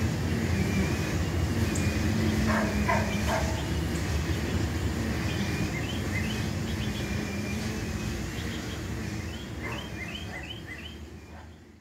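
1963 Ford Fairlane 500's engine idling with a steady low rumble, while birds chirp in short runs. The sound fades out near the end.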